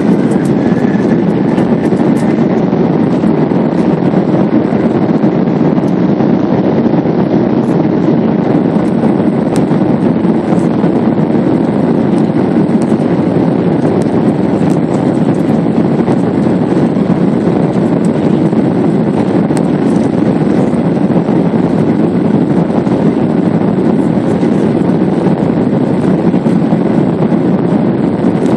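Jet airliner's engines and cabin noise heard from a seat over the wing: a loud, steady rumble that holds level and pitch throughout.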